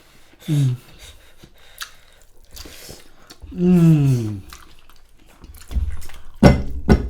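Close-up eating sounds of mutton biryani: chewing and small wet mouth clicks. There are two brief voiced sounds, the second longer with a falling pitch, and a cluster of loud sharp clicks near the end.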